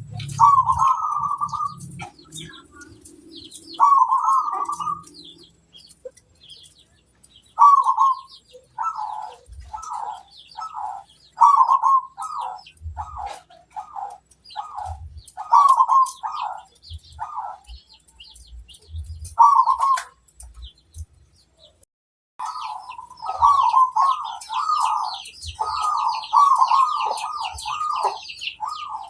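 Zebra doves (perkutut) cooing: a run of short, rolling coo phrases repeated every second or so, pausing briefly past the middle and then coming back more densely. Quick high-pitched chirps of small birds run above the coos, thickest near the end.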